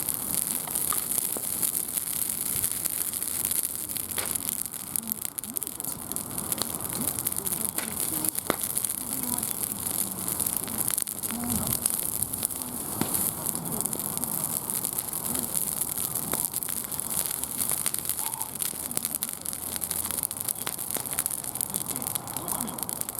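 Wood fire burning: a steady hiss with scattered sharp crackles and pops.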